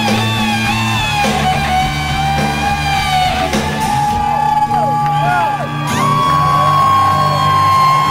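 Live rock band with a lead electric guitar played on a double-neck guitar: bent, sustained lead notes over the bass and drums, then a long held note from about six seconds in.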